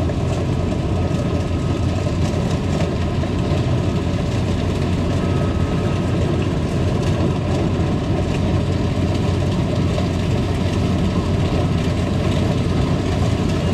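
Kubota DC70 combine harvester's diesel engine running steadily as it cuts rice flattened by a storm.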